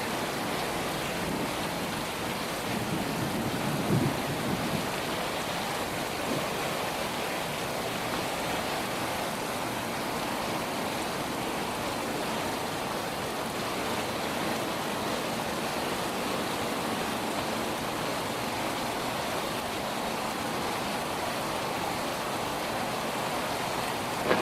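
Steady rain falling during a thunderstorm, a constant even hiss. A brief low rumble of thunder swells and fades about four seconds in.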